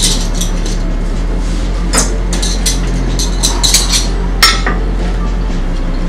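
Metal cutlery clinking against china plates as a table is set: a scatter of light clinks, the sharpest about halfway through. A steady low hum runs underneath.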